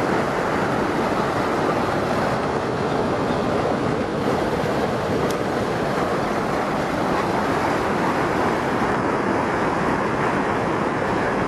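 Muddy floodwater of a river in spate rushing through wide turbulent rapids below an overflowing reservoir spillway, a steady unbroken rush of water.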